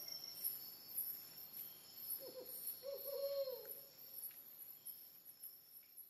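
Night rainforest ambience: insects trilling steadily at a high pitch, with a brief low hooting call a little over two seconds in, the whole gradually fading.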